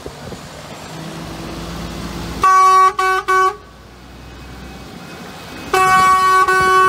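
A truck passes close by with its diesel engine running, then an air horn sounds: three quick blasts about two and a half seconds in, and a long, loud blast from near the end.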